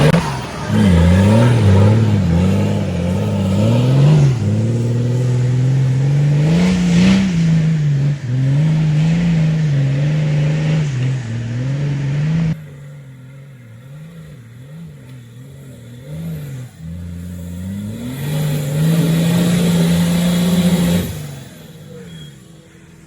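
Nissan Patrol 4x4 engine revving up and down in quick repeated throttle blips during off-road driving. A little past halfway it turns suddenly much quieter, then near the end it holds a steady higher rev for a few seconds before dropping away.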